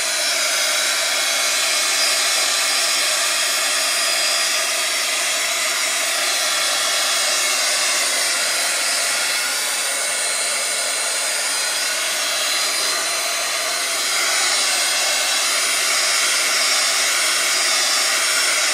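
Steady whooshing of a small electric air blower running without a break, with a faint steady motor whine in the hiss.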